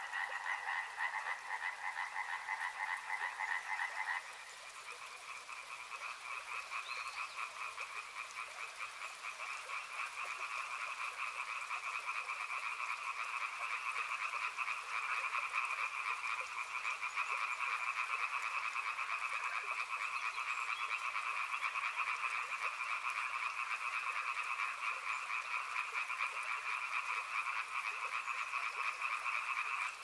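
Dense chorus of frogs calling without pause, a fast pulsing trill in two pitch bands, one higher than the other. About four seconds in it changes abruptly to a slightly higher pitch and drops in loudness, then slowly builds back up.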